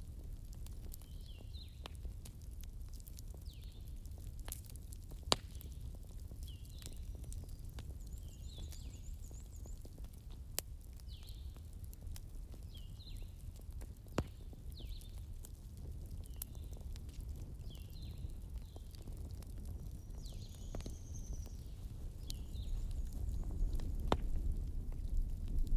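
Small birds chirping: short high chirps repeat about once a second, with a brief higher trill once, over a steady low rumble and a few sharp clicks.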